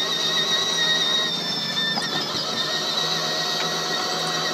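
Electric motor and plastic gearbox of a Peg Perego Polaris children's ride-on quad whining steadily as it drives, the whine wavering briefly about halfway through.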